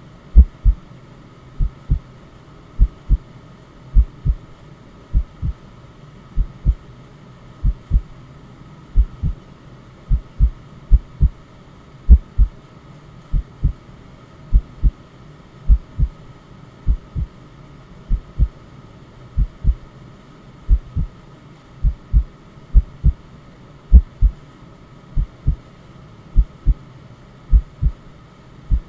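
Heartbeat sound: a low double thump, lub-dub, repeating about once a second, over a faint steady white-noise hiss.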